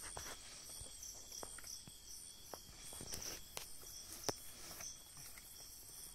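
Night crickets chirping in a steady, high, pulsing rhythm. Scattered knocks and clicks from people moving about in the wooden tree house, the loudest a little after four seconds in.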